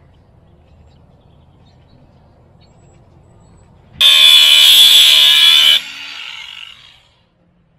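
DeWalt angle grinder switched on about four seconds in, its disc grinding the steel of the loader bucket for just under two seconds with a loud high whine. The grinder is then lifted off and coasts down, fading out within about a second. The grinding clears the bucket steel where a chain hook is to be welded.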